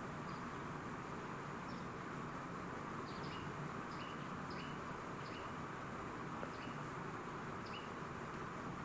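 Steady background hiss, with about a dozen faint, short, high-pitched chirps scattered irregularly through it.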